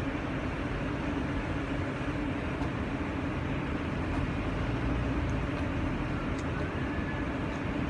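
Diesel engine of a Grove mobile crane running steadily, a low even hum, as the crane holds a lifted walkway section.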